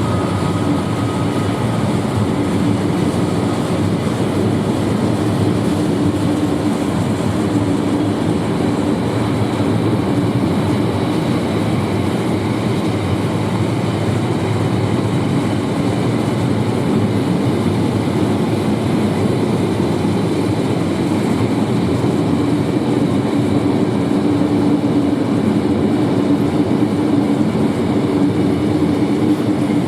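A freight train running steadily past, its wagons rolling on the track with a constant hum underneath.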